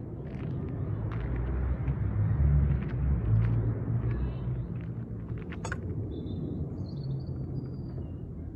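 Low, uneven rumble of wind buffeting the microphone outdoors, strongest in the first half, with a few small clicks and a sharp click a little past halfway. Several short high chirps come soon after that click.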